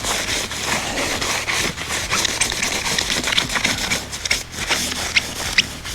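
Steady rough scraping and rubbing at a motorcycle wheel as it is cleaned and stripped of its old balance weights, with a few sharp clicks.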